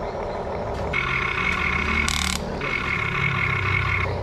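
Remote-control model excavator's electric motors whining steadily as the boom and bucket move, the whine coming in about a second in. A brief rush of noise cuts across it about two seconds in.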